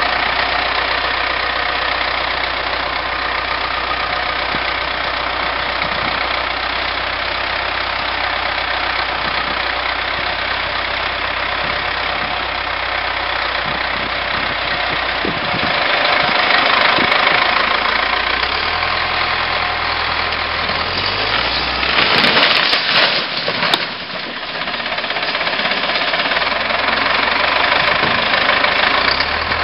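Wheel loader's diesel engine running steadily, then revving up and labouring as it pushes against a metal-sided garage. About three-quarters of the way through comes a loud burst of crashing, scraping sheet metal as the building gives way, with the engine still running.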